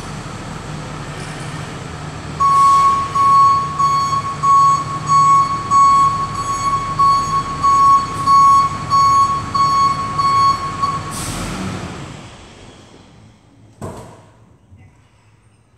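Tow truck engine running while its backup alarm beeps about twice a second for several seconds. A short burst of hiss follows, then the engine sound fades as the truck pulls away, with a single knock near the end.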